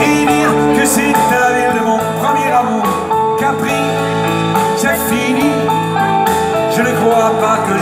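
Live band music from a concert stage, amplified through the PA: an instrumental passage of a French pop song, with steady held notes under a melody line.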